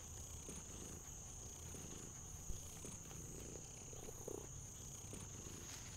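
Faint night-time insect ambience: a steady high cricket trill over a soft low rumble.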